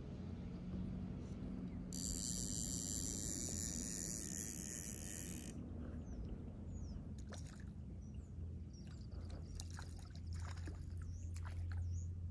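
Low, steady wind rumble on the microphone at the water's edge. Short bird chirps and a scatter of sharp clicks come in over the second half.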